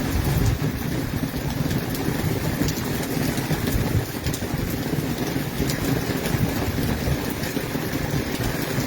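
Heavy thunderstorm rain pouring down, a steady hiss over a deep, constant low rumble.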